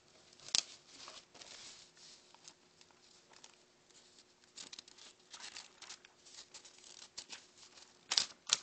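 Rustling and handling of a spiral-notebook page held up close, with a sharp tap about half a second in and two louder knocks near the end.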